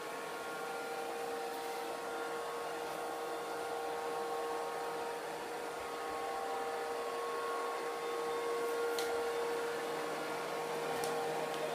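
Kitfort KT-503 robot vacuum running: a steady whirr of its suction motor with a constant hum. Two faint ticks come in the second half.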